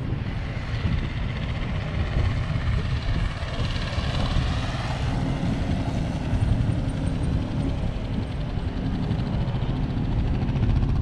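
Steady low rumble of wind buffeting the microphone, mixed with motorcycle engines running in the background.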